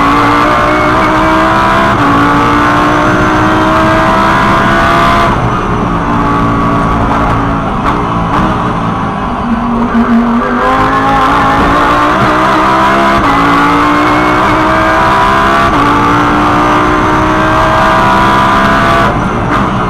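Lamborghini Huracán GT3's V10 engine at full throttle, heard from the cockpit, rising in pitch and stepping down at each upshift. About five seconds in the car brakes and the engine note drops through downshifts to second gear. It then pulls hard again through upshifts to fourth and lifts off just before the end.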